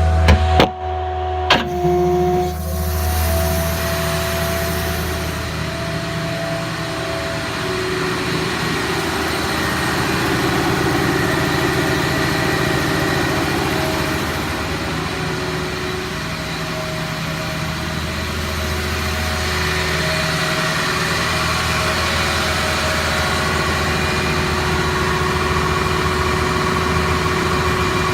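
A Ford F-550's 6.0 diesel engine runs steadily with the power take-off engaged, driving the hydraulic pump for the truck's crane, while the crane functions are worked. The steady hum shifts in tone along the way. Two sharp clicks come about half a second and a second and a half in.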